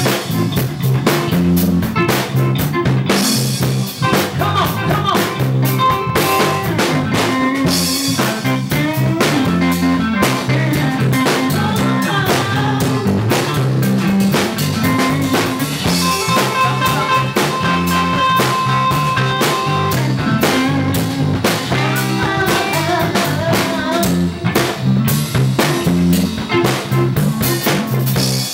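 Live blues band playing: a drum kit keeps a steady beat with rimshots under electric guitar and bass lines, with a long held note about halfway through.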